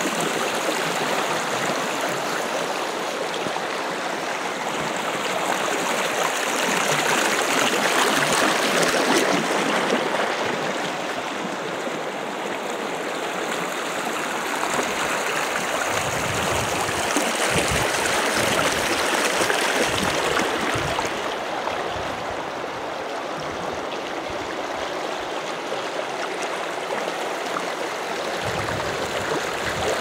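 Shallow river rushing and splashing over rocks and small rapids, a steady rush of water that swells a little about a third of the way in.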